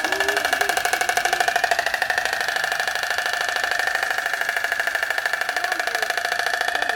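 Oriental stork bill-clattering: the two halves of the long bill snapping together in a fast, even rattle of about twelve claps a second. It is the stork's display sound, used in place of a voice.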